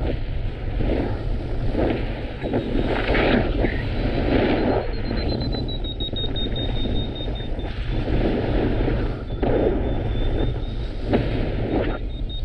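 Strong gusty wind buffeting the microphone, a steady low rumble with swells as the gusts rise and fall. About four seconds in, a thin, high, steady tone sets in and wavers slightly in pitch.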